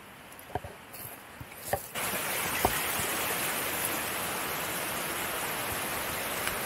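Small creek running fast over rocks, a steady rushing hiss that starts suddenly about two seconds in. Before it, a fainter hiss with a few light clicks.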